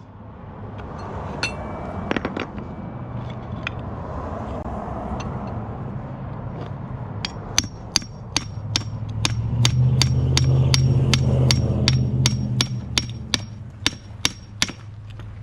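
Hammer blows on the car's old steering linkage to knock the worn arm loose: a couple of clanks early, then after a pause a long run of sharp, evenly spaced strikes at about three a second until near the end. A steady low hum runs underneath and swells for a few seconds in the middle of the hammering.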